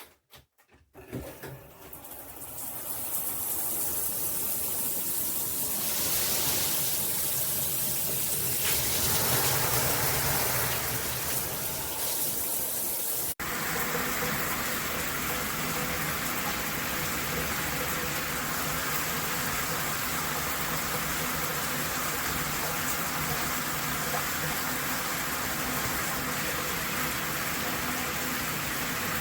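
Water spraying from a Hibbent shower head and splashing down. The spray builds up over the first couple of seconds, then runs steadily. About 13 seconds in there is an abrupt cut, and the spray carries on with a slightly hissier sound.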